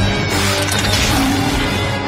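Loud music with a dense rushing noise of sound effects laid over it, the soundtrack of an animated cartoon clip. It cuts off sharply just after the end.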